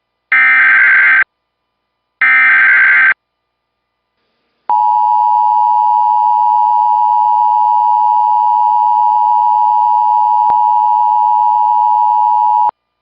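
Emergency Alert System header: two harsh digital data bursts about a second each, then a steady attention tone near 1 kHz held for about eight seconds, cutting off just before the end.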